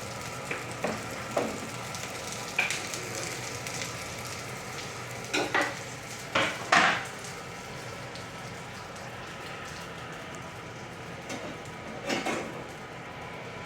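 Food sizzling in a frying pan, with a utensil stirring and knocking against the pan a few times. The loudest knocks come about halfway through.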